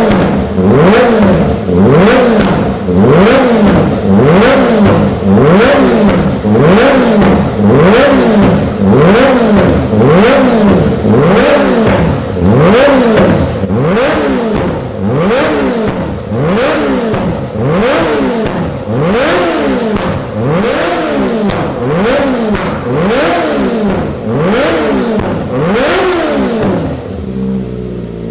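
Kawasaki Ninja ZX-25R's 250 cc inline-four engine revved over and over, about once a second, each blip rising sharply in pitch and dropping back. The revs weaken near the end before the sound dies away.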